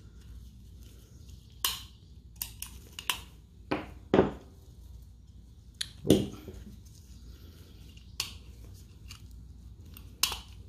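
Scattered clicks and knocks of a Sig P365 magazine being taken apart by hand with a punch, as its base plate is worked off the steel magazine body. Two louder knocks come about four and six seconds in.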